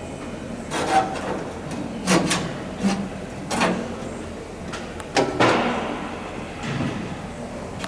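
Sheet-metal aircraft parts being handled and fitted together: irregular knocks and rattles, about eight, some with a brief metallic ring, as a joggled piece is worked into place under its neighbour.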